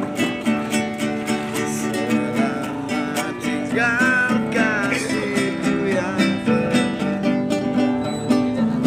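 Classical nylon-string guitar strummed in a steady rhythm while a man sings a melody over it. The sung line stands out most about four to five seconds in.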